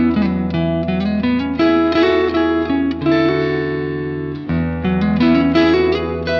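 Guitar played through a TC Electronic Skysurfer Mini reverb pedal: a run of picked notes and chords with ringing reverb tails, and a chord held about three seconds in that rings for over a second. A steady low bass note sits underneath and changes about four and a half seconds in.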